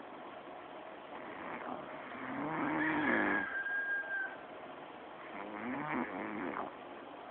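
A man snoring: two loud, fluttering snores a few seconds apart, the first carrying a high, thin whistle that holds for over a second.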